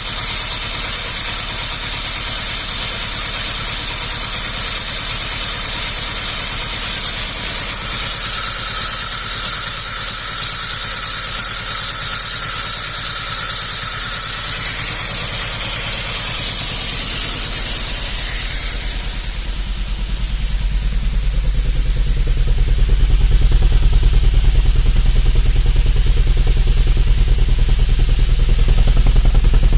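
Saab 900 Turbo SE's turbocharged four-cylinder engine idling roughly, with an uneven, pulsing beat. A high whine rides over it for about the first two-thirds, then fades, and the low engine note grows louder.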